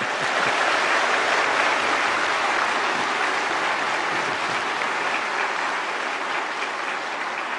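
Large audience applauding in a big hall: dense, steady clapping that starts at once and slowly dies down.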